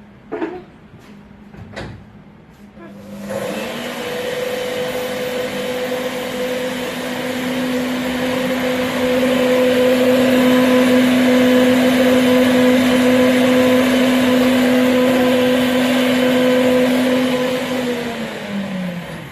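Kitchen blender grinding dry coriander seed: a few clicks as it is set up, then about three seconds in the motor starts and runs at a steady high speed, getting louder partway through, and spins down with a falling pitch near the end.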